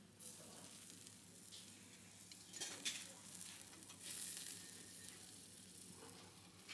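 Skewered corn and meat sizzling faintly over glowing charcoal, with a few sharp crackles near the middle and the hiss swelling about four seconds in.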